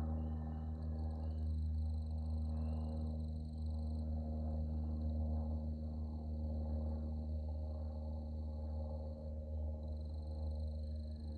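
Distant Cessna 172M Skyhawk's four-cylinder Lycoming engine and propeller giving a steady, low drone as the plane climbs away, slowly wavering in level.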